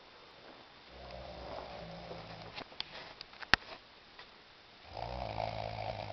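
A sleeping man snoring: two long snores, one about a second in and a louder one near the end. A sharp click falls between them.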